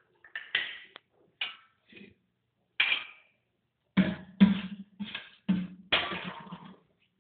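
Irregular sharp knocks and clatters of a ceramic pickle jar being handled and filled, about a dozen hits. From about four seconds in they come heavier, with a short low ring after each.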